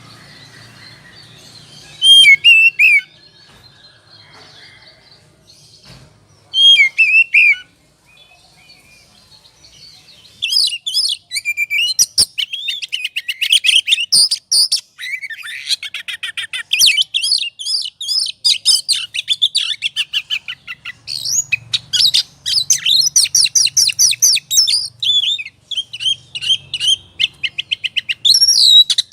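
Oriental magpie-robin singing in the fast, aggressive 'ngobra' style: two short whistled phrases, then from about ten seconds in a dense, rapid, loud run of chirps and whistles.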